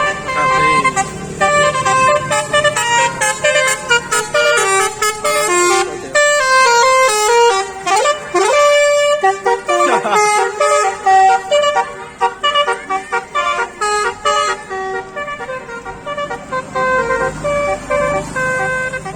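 A telolet (basuri) multi-tone musical horn on a box truck, with its trumpets mounted on top, playing a fast tune: quick runs of horn notes stepping up and down, with a few rising and falling pitch sweeps about halfway through.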